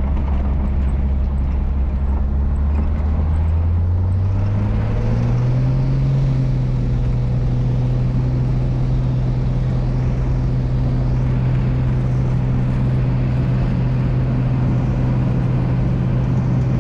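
Light single-engine propeller plane's engine heard from inside the cabin, running steadily, rising in pitch about four to six seconds in as power comes up, then holding steady.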